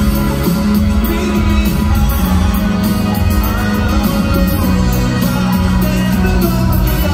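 Live pop band music played over an arena sound system, heard from the stands: a strong bass line and drums with guitar and brass.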